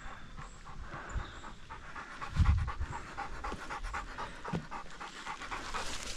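A dog panting quickly and rhythmically, with a dull low thump about two and a half seconds in.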